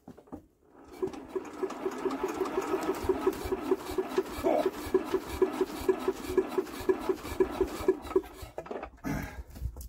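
Old Lister Petter diesel generator engine being hand-cranked, turning over with a steady whirr and a regular clicking about five times a second for some eight seconds, then stopping. It turns over without firing: no smoke, no start.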